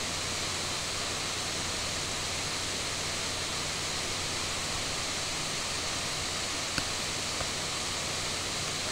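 Steady background hiss with no other sound in it except one faint click about seven seconds in.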